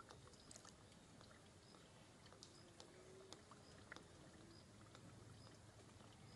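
Near silence: faint outdoor ambience with scattered light clicks and a few faint, short high chirps.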